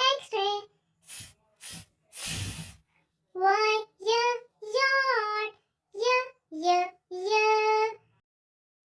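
A child's high-pitched voice chanting phonics sounds in a sing-song: a few short hissing consonant sounds near the start, then a run of held, sung syllables, one after another.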